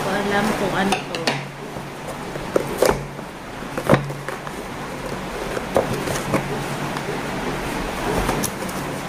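A taped cardboard box being handled and pulled open by hand: scraping and rustling of cardboard and packing tape, with several sharp knocks and clicks, the loudest about three and four seconds in.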